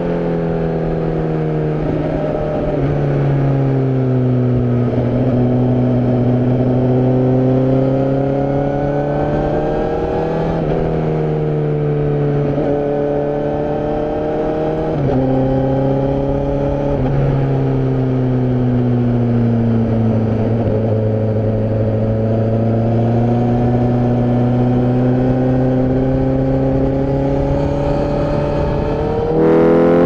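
Honda CBR1000RR-R Fireblade SP's inline-four engine heard from on board the moving bike. Its pitch rises and falls as the throttle is opened and rolled off, with several sudden pitch steps at gear changes and a louder rev near the end. Wind noise sits under the engine.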